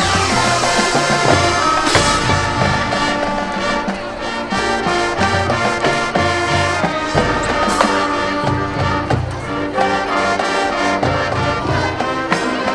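Marching band playing at full volume: trumpets and trombones hold chords over a pulsing low drum beat, with a sharp accented hit about two seconds in.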